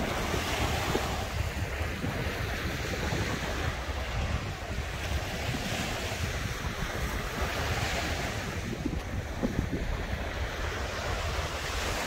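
Baltic Sea surf washing onto a beach, rising and falling in repeated swells. Wind buffets the microphone with a steady low rumble.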